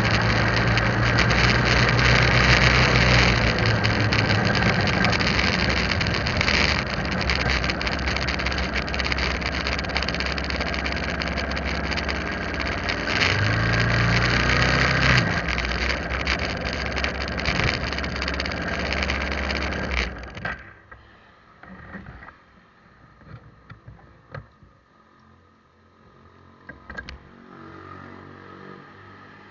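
Motorbike engine running under way with road and wind noise, easing and picking up once about a third of the way in. About twenty seconds in the engine is switched off and the noise stops abruptly, leaving a quiet stretch with a few small knocks.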